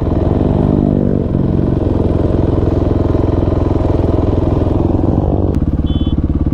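Dirt bike engine running while being ridden, rising briefly in pitch at the start and then holding steady. A short high electronic beep comes near the end.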